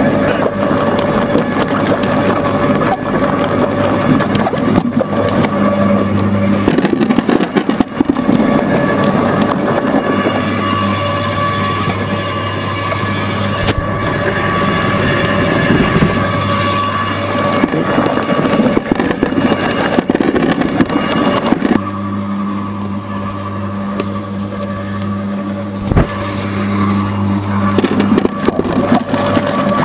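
Motor-driven apple scratter running steadily with a low hum, its cutter grinding apples into pulp with a rough, crunching noise and occasional sharp knocks.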